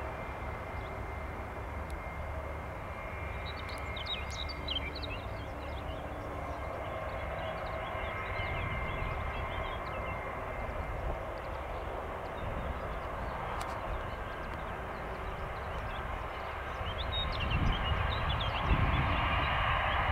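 Airbus A319 jet engines running at low power as the airliner rolls along the runway, a steady rumble with a thin whine over it. The sound grows louder near the end. A few bird chirps can be heard faintly over it.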